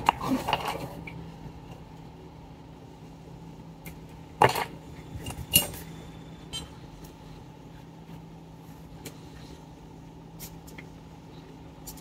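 Small metal tools clicking and clinking as they are handled and set down on a workbench, two sharper clicks about four and a half and five and a half seconds in, over a steady low hum.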